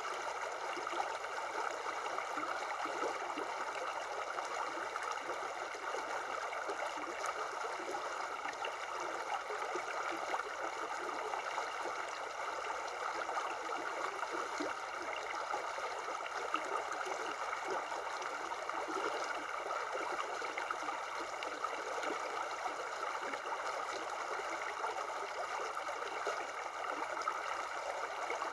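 Shallow river running steadily over rocks and stones, a continuous rush of water.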